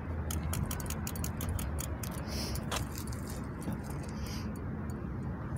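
KhVZ Sputnik bicycle in motion over concrete paving slabs, giving off many irregular sharp ticks and rattles, densest in the first two seconds, over a steady low rumble.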